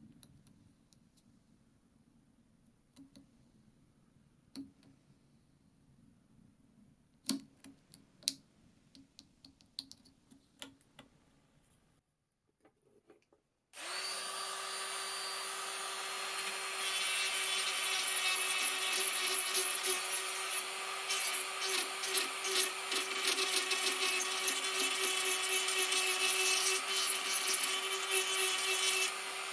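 Faint scattered clicks and taps of handwork, then, after a brief gap about halfway through, a small power tool starts up and runs with a steady whine. A few seconds later it begins grinding into the cast moulding piece, taking material off the back so the piece will sit down into place.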